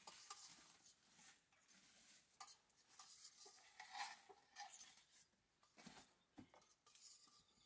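Faint rustling and crinkling of a woven plastic sack being shaken out and spread on an earthen floor, then a few light knocks about six seconds in as a wooden board is set down on it.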